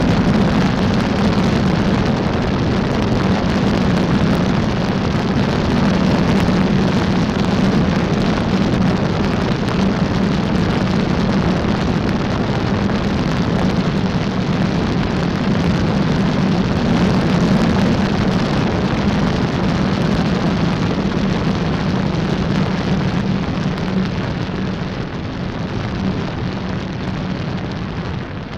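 Light single-engine propeller airplane on final approach: a steady engine and propeller drone with a low hum, mixed with rushing wind. The sound eases a little in the last few seconds as the plane comes down onto the runway.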